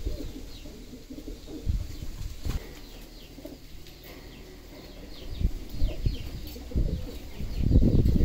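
Pigeons flapping their wings in short, irregular bursts, the loudest near the end, with pigeons cooing.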